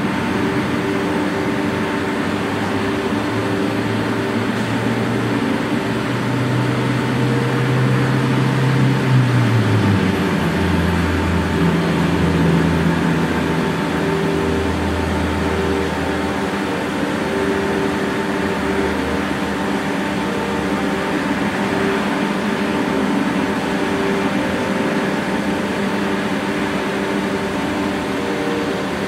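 Steady mechanical hum made of several held tones. A low tone steps down in pitch about nine to ten seconds in.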